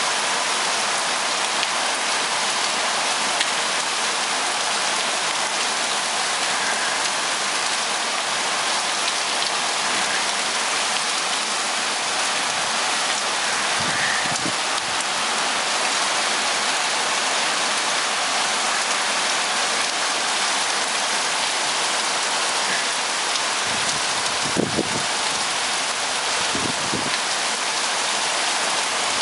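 Torrential rain pouring steadily onto pavement and concrete, a dense even hiss. A few brief low thuds break through it, the loudest about 25 seconds in.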